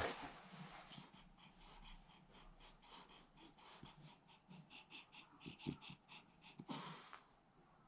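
French bulldog breathing noisily in its sleep: faint, wheezy snoring with a louder breath at the start and another near the end.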